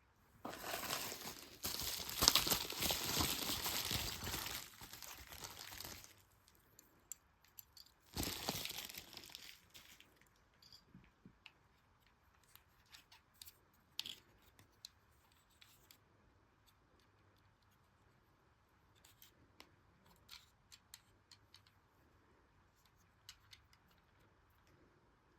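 Packaging being torn and crumpled by hand: a long stretch of ripping and crinkling for the first six seconds or so, a shorter burst of it about eight seconds in, then light scattered clicks and rustles.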